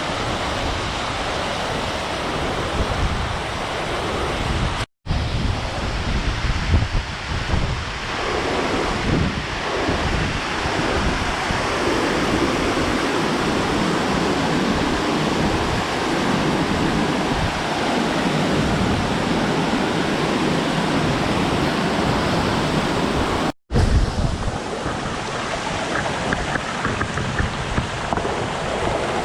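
Steady roar of a waterfall with wind buffeting the microphone. The sound drops out for an instant twice.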